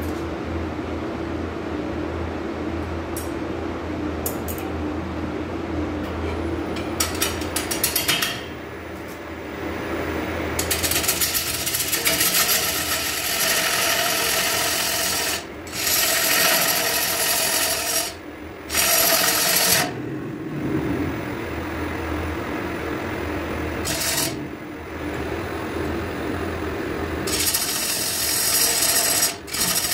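Wood lathe running while a gouge cuts a spinning, bark-edged log slab in repeated passes, each pass a loud hissing scrape that stops and starts again every few seconds over the motor's low hum. Some passes carry a rapid ticking.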